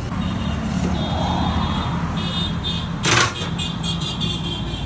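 Street traffic: vehicle engines running with a steady low hum, and a short sharp hiss about three seconds in.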